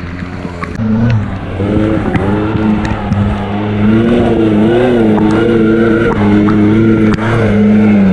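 Off-road vehicle's engine running under load, its pitch rising and falling with the throttle, with occasional knocks and clatter from the rough track.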